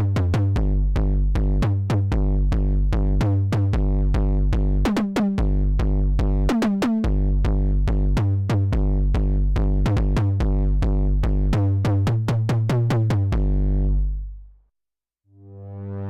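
Arturia MiniFreak synthesizer playing a preset: a sequenced bass pattern of short, punchy notes, about four a second, with clicky drum-machine-like attacks. It fades out about fourteen seconds in, and after a moment of silence a new preset with a sustained, swelling sound begins near the end.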